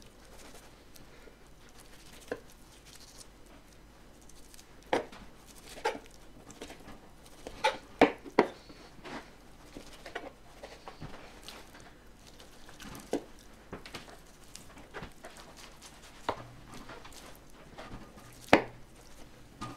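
Boning knife trimming fat off a top sirloin butt on a cutting board: irregular knife taps and clicks against the board, with a quick cluster of the loudest ones about eight seconds in and another sharp one near the end.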